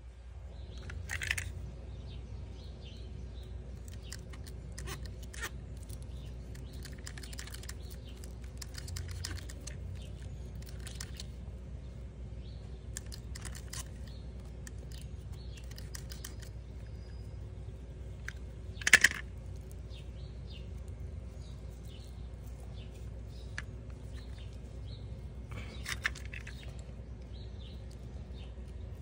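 Pliers working at the corroded end of a heavy-gauge winch ground cable: scattered small clicks and snips, with one sharper snap about two-thirds of the way through, over a steady low hum.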